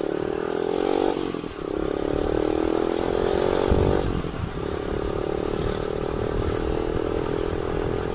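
Motorcycle engine pulling under acceleration, its pitch rising, with short breaks for gear changes about one second and four seconds in, then running at a steady pitch.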